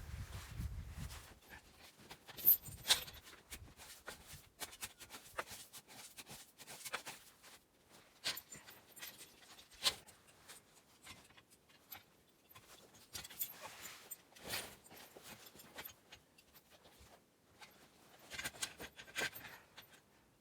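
Irregular crunching, rustling and knocking from a person working in deep snow, handling a log and sled. Sharper knocks come about three seconds in, around ten and fourteen seconds, and in a cluster near the end.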